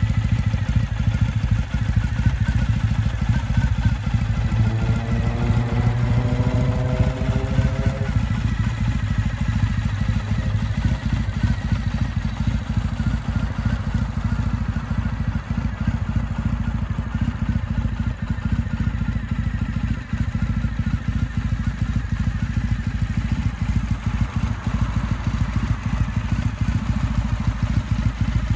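2015 Triumph Bonneville T100's air-cooled parallel-twin engine idling steadily, a low even rumble. A brief rising whine sounds a few seconds in.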